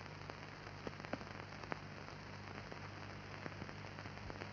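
Faint crackle and scattered irregular clicks over a low steady hum: surface noise of a worn old film soundtrack.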